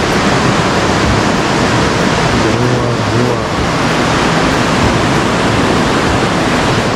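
Whitewater rapids of the Parvati River rushing over boulders: a loud, steady rush of water.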